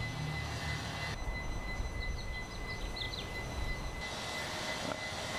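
Outdoor street ambience: a steady low rumble with a faint, steady high whine, and a few faint bird chirps about two to three seconds in.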